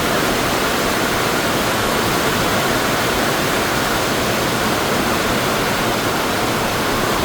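Heavy monsoon rain pouring down in a steady, dense hiss that holds even throughout.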